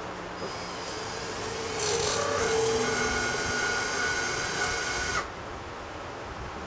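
A power tool motor whining steadily, growing louder about two seconds in, then cutting off suddenly after about five seconds.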